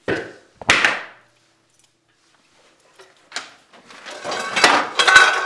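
Two hard hammer blows in the first second, then a smaller knock, then a quick run of knocks and clatter near the end.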